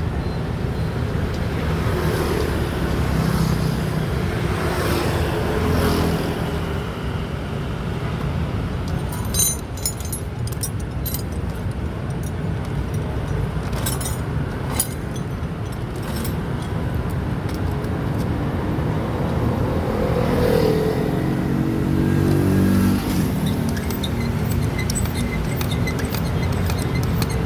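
Road traffic running steadily, with an engine revving up and falling away as a vehicle passes about four seconds in and again about twenty seconds in, and a few light clicks in between.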